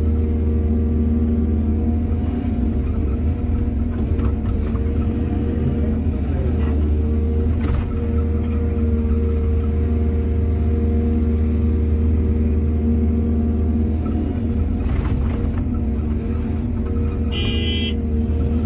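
Excavator's heavy diesel engine running steadily at constant speed, a deep hum with an even drone above it. About a second before the end there is a brief high-pitched tone.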